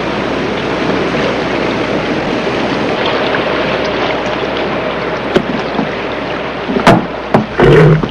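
Steady rushing of river water. About seven seconds in comes a sharp knock, followed near the end by a loud, sudden sound.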